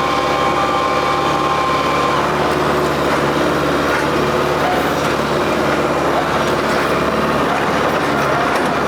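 New Holland WorkMaster 55 tractor's diesel engine running steadily under work, with a thin high whine for about the first two seconds.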